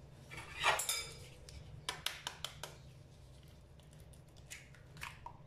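An egg knocked against the rim of a glass blender jar and broken open: one sharp knock with a short ring about a second in, then a quick run of small clicks and clinks of shell against glass, and a few fainter clicks near the end.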